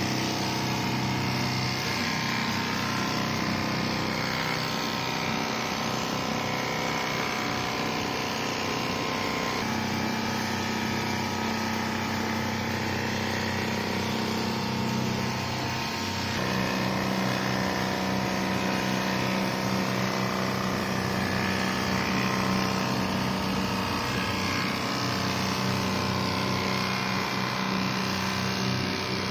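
Richpeace computerized non-stop quilting machine running, its sewing head stitching continuously as the gantry moves: a steady mechanical hum. Its tones shift in pitch at about ten seconds in and again at about sixteen seconds in.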